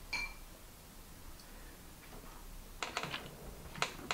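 Cutlery clinking and tapping against ceramic bowls during a meal: one short ringing clink just after the start, then a cluster of light clicks about three seconds in and two more near the end.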